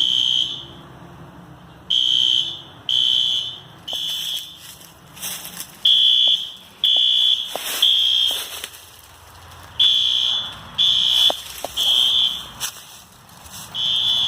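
Fire alarm sounder giving a high-pitched beeping in the temporal-three evacuation pattern: three half-second beeps about a second apart, then a pause, repeating every four seconds. A few light knocks fall between the beeps.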